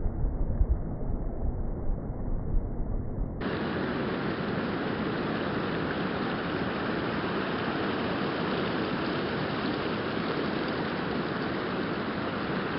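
Wind buffeting the microphone as a gusty low rumble, then, after an abrupt change about three seconds in, a steady rushing noise.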